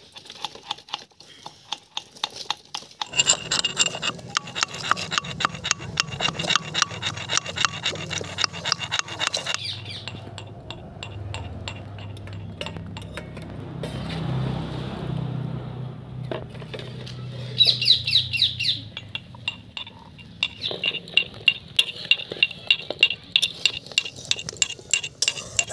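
A metal spoon clinking and scraping against a steel kadai as eggs are stirred in it. The pan rings at each quick strike. The clinking comes in two spells with a quieter stretch in the middle.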